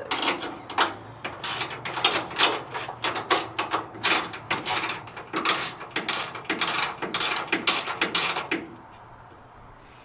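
Hand ratchet clicking in quick back-and-forth strokes as a nut is tightened down. The clicking stops about eight and a half seconds in.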